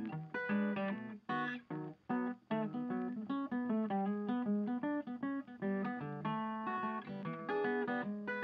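Background music: an acoustic guitar playing a quick run of plucked and strummed notes.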